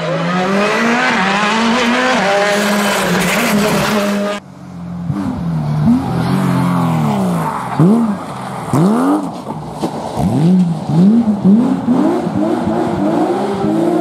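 Rally car engines at racing speed on a tarmac stage. For the first four seconds one car's engine holds a high, steady note. After a sudden cut, a Porsche 911 sliding through a hairpin revs hard, its engine note rising and falling sharply again and again.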